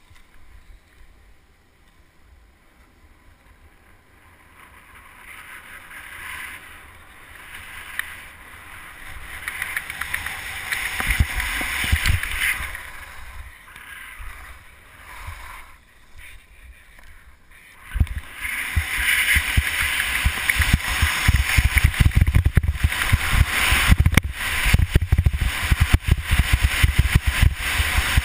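Skis hissing and scraping over packed snow, with wind rumbling on a helmet-mounted GoPro as the skier picks up speed. It is quiet at first, builds from about a quarter of the way in, eases briefly past the middle, then turns loud and constant from about two-thirds through.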